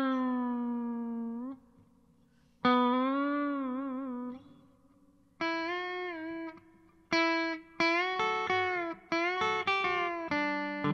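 Kramer Pacer electric guitar played through a miked Harmony H605 amp: two long single notes, the second bent up and shaken with vibrato, then a quicker run of picked single notes from about halfway on.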